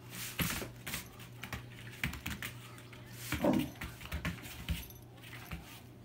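Golden retriever puppy's collar tags jingling and its paws scuffing on a foam play mat as it bounces about, a string of short clicks and rustles, with one brief cry about three and a half seconds in.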